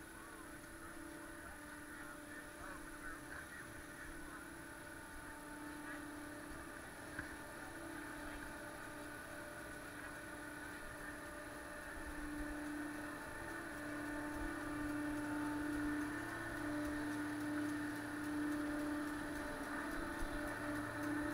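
Chairlift drive machinery at the loading station: a steady hum at several pitches that grows louder in the second half.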